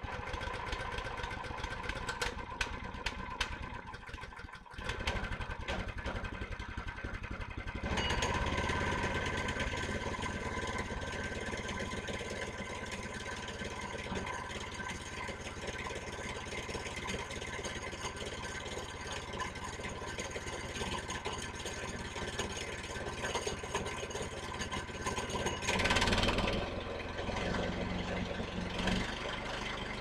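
Portable bandsaw mill's gas engine starting up and running unevenly for the first few seconds, then about eight seconds in it speeds up and runs steadily at working speed as the saw head is brought up to the log for a cut. It gets briefly louder near the end.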